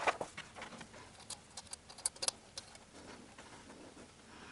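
Light, irregular metallic clicks and taps of washers and nuts being handled and fitted onto the intake manifold studs of a VAZ 8-valve engine, with a sharper click at the start.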